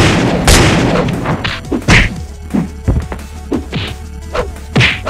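Cartoon fight sound effects: a loud crash about half a second in that trails off over a second or so, then a string of sharp whacks and thuds roughly every half second, over background music.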